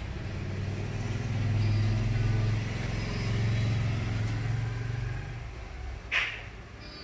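A motor vehicle passing: a low engine rumble that swells over a couple of seconds and fades away. About six seconds in there is one short, sharp, high-pitched sound.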